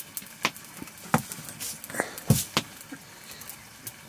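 Wood cooking fire crackling: scattered sharp pops, about two a second, over a faint steady hiss.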